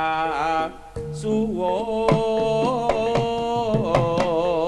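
Javanese jaranan gamelan music. A chanted vocal phrase ends in the first second, then a long-held, wavering melodic line runs over scattered drum strokes.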